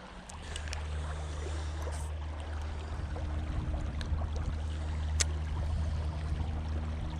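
Flowing creek water with a steady low hum beneath it, and a sharp tick about five seconds in.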